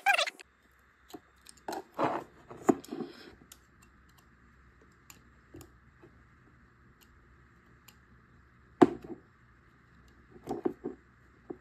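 Utility knife blade scraping and clicking against the metal cover edge of a Western Digital Caviar hard drive, being worked under its foil sealing band. It comes as a few short scrapes and taps, with one sharp click about nine seconds in.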